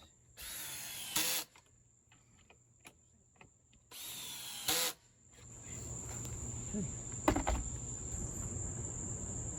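A power drill runs in two bursts of about a second each, near the start and about four seconds in, driving hidden-fastener screws into PVC deck boards. From about five and a half seconds in, a steady high cricket chirring sets in over a low rumble.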